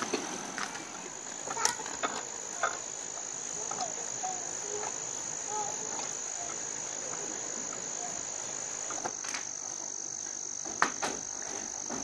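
A steady high-pitched insect trill, such as crickets, with a few sharp clicks or knocks scattered through it and faint short chirps near the middle.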